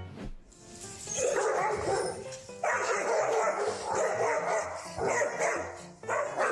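A dog vocalising in several drawn-out, rough stretches with short breaks between them, over background music.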